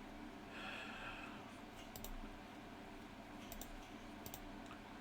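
A few sharp clicks of a computer being worked, two of them in quick pairs, over a low steady hum.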